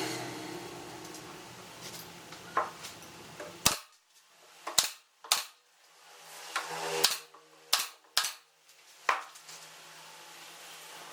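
A string of about eight sharp knocks, irregularly spaced, from strikes on wood during hand woodworking. The loudest come between about four and eight seconds in.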